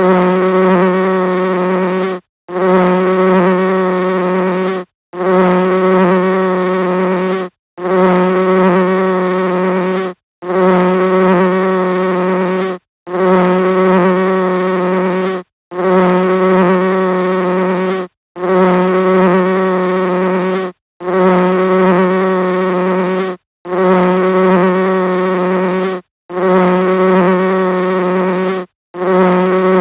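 Honeybee wings buzzing: a steady, low-pitched buzz that breaks off for a split second about every two and a half seconds and starts again, as a looped recording.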